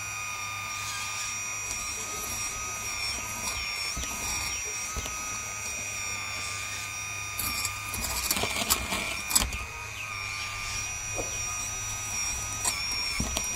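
Hydraulic RC excavator (a CAT 336D model) with its pump motor whining steadily, the pitch dipping briefly now and then as the boom and bucket are worked. From about seven and a half to nine and a half seconds in, the bucket scrapes and crunches into the dirt, the loudest part.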